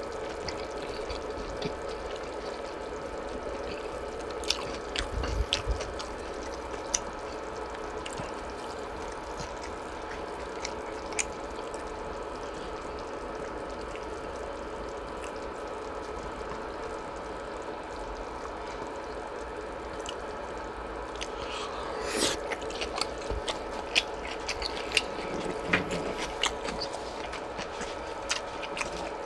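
Light clicks and scrapes of utensils handling food, scattered over a steady low hum. The clicks come thicker, with a short rustling swell, near the end.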